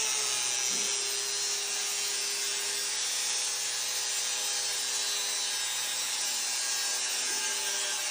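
A small power saw running steadily while cutting through cardboard, a continuous rasping noise over a faint even motor hum.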